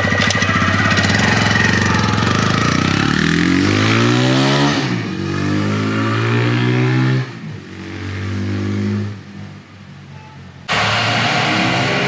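TVS Raider 125's air- and oil-cooled single-cylinder engine as the motorcycle rides past under throttle. Its pitch bends as it passes about four to five seconds in, then it fades away over several seconds. Just before the end the engine sound comes back loud all at once.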